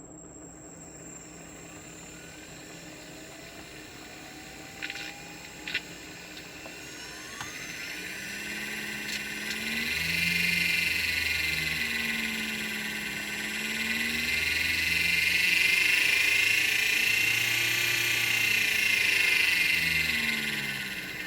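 3D-printed axial flux brushless motor whining as it runs, its pitch repeatedly rising and falling as the speed changes. It gets louder about halfway through, with two short clicks about five seconds in.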